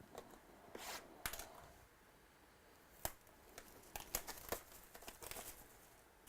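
Trading card pack wrappers being torn open and crinkled, with handling of the cards: short sharp rustles and clicks about a second in, then again in a cluster from about three to five and a half seconds in.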